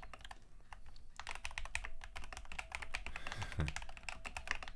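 Fast typing on a Drunkdeer M75 magnetic-switch keyboard: a dense run of key clacks, sparse for about the first second and then continuous.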